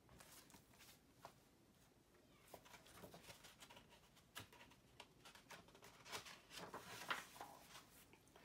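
Faint rustling and light clicks of picture-book pages being handled and turned, starting about two and a half seconds in.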